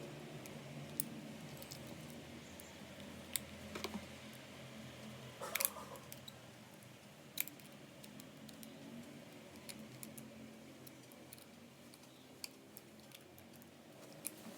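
Small parts of a model truck's rear axle and differential clicking and tapping as they are handled and fitted by hand: a few scattered sharp clicks, some in quick pairs, over a faint steady hum.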